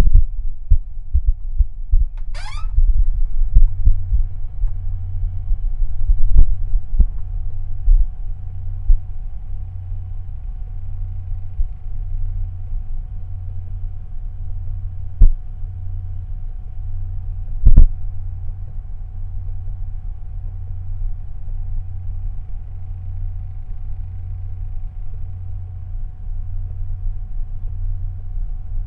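Slow heartbeat: a low, muffled thump about once a second over a faint steady hum. A quick rising sweep comes about two seconds in, and two sharp clicks fall around the middle.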